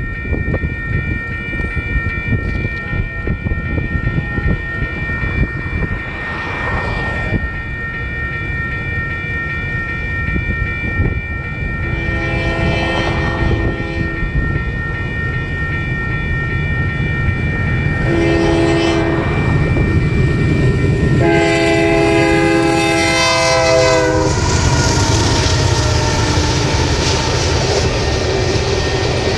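Union Pacific freight train approaching and passing, its lead locomotive sounding the grade-crossing horn pattern: long, long, short, long, each blast louder as it nears. From about the last blast the head-end diesel locomotives go by close at hand, with heavy engine rumble and wheel noise.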